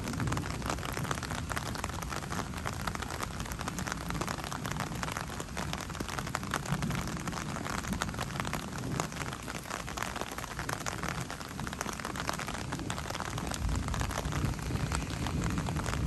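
Thunderstorm: steady rain falling, full of sharp ticks from drops landing close by, over a low thunder rumble that swells and fades, strongest near the end.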